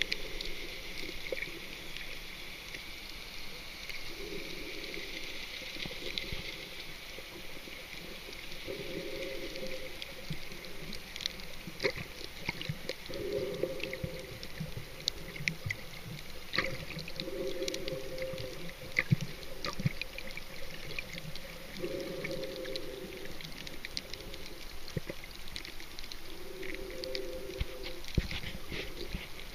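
Underwater water sound: bubbling, gurgling bursts come back about every four to five seconds, with scattered sharp clicks and crackles throughout.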